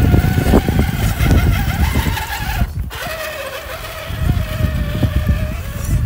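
Electric motor and gearbox whine from RC scale rock crawlers, a Traxxas TRX-6 6x6 among them, crawling over rocks. The whine rises a little, breaks off briefly about three seconds in, then holds steady over a strong low rumble.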